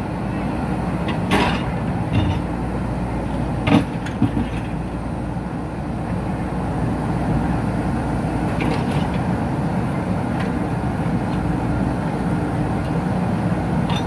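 JCB 3DX backhoe loader's diesel engine running steadily, with a few sharp knocks, the loudest about four seconds in.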